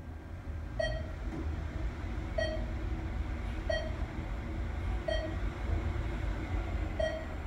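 ThyssenKrupp traction elevator car descending with a steady low rumble, while a short electronic beep sounds five times, about every second and a half: a floor-passing signal as the car goes by each landing.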